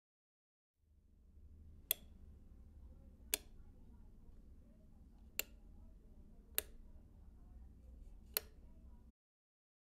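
Five sharp clicks at uneven intervals over a low, steady room hum. The hum starts just under a second in and cuts off abruptly near the end.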